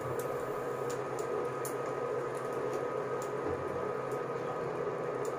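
A steady hum with a haze of room noise and a few faint ticks.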